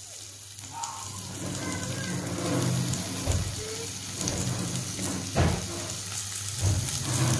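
Sliced onions sizzling in hot oil in a frying pan, a steady crackling hiss that builds about a second in, with a few soft low thumps.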